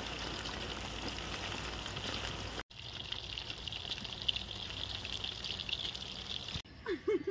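Chicken pieces deep-frying in hot oil: a steady sizzle with fine crackling. It breaks off for an instant about two and a half seconds in, then runs on until it drops away near the end, leaving quieter background.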